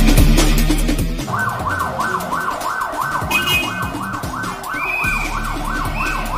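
An ambulance siren wailing rapidly up and down, about two to three sweeps a second, starting about a second in over electronic dance music with a heavy beat.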